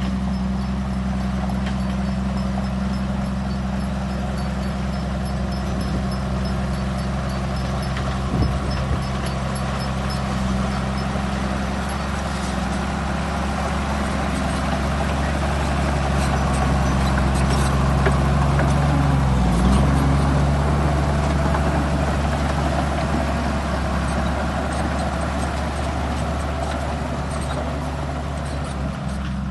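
Heavy diesel engine of earthmoving machinery running steadily, with a brief dip in engine speed about two-thirds of the way through and a single short knock earlier on.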